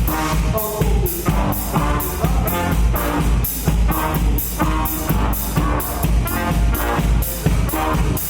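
Live rock band playing, a drum kit keeping a steady beat about twice a second under guitar and bass.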